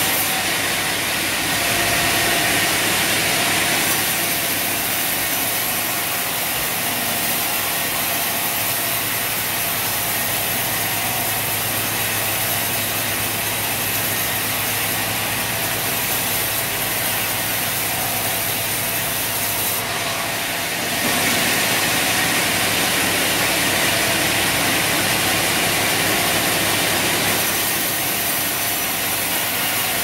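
Large sawmill band saw cutting lengthwise through a log, a steady rushing sawing noise over the machine's running hum. It grows a little louder for a few seconds near the start and again about two-thirds of the way through.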